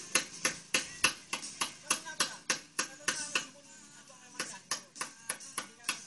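Hammer striking a chisel cutting into a stone slab: sharp taps about three a second, pausing for about a second past the halfway point before starting again.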